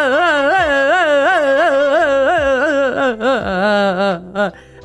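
A loud, high wailing voice that warbles up and down in pitch a few times a second, dropping lower near the end.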